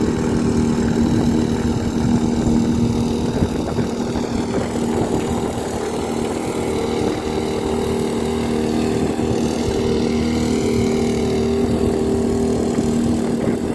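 Firman FFP15 floating water pump's 52 cc two-stroke petrol engine running steadily at a constant high speed, with an even buzzing pitch.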